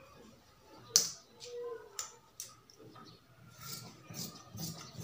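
A sharp clack about a second in and a couple of lighter taps, then scissors snipping through cotton cloth near the end, several crisp snips in quick succession.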